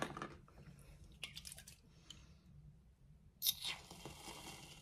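Aerosol can of whipped cream spraying with a hiss, starting about three and a half seconds in and lasting about a second and a half. A short knock comes at the very start.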